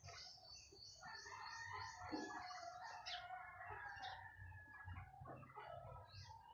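Birds chirping faintly, one giving a quick run of high, evenly repeated notes, about four a second, during the first two seconds or so, with scattered shorter calls after it.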